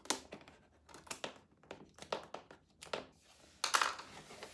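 A packaging box being opened by hand: a run of short crinkling, rustling and scraping sounds, loudest in a cluster just under four seconds in.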